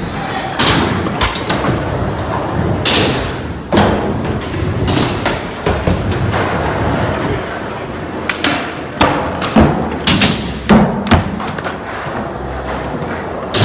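Skateboards rolling with a steady rumble, broken by repeated sharp thuds and clacks of boards landing and hitting the ground, coming in quick succession about two-thirds of the way through.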